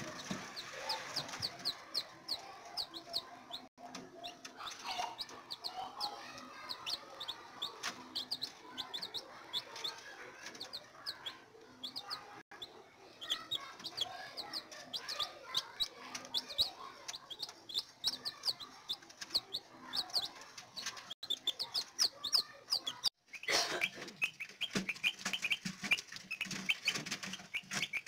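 A group of newly hatched chicks peeping without pause, many short high cheeps in quick succession. After a brief break a little over 20 s in, the peeps come lower and denser.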